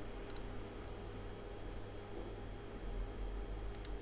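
Computer mouse clicks: a quick double click about a third of a second in and another just before the end, over a low steady hum.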